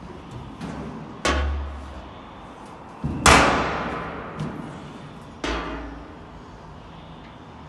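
Stainless steel mixing-tank lid clanking three times as it is handled open, each knock ringing out and dying away; the middle one, about three seconds in, is the loudest.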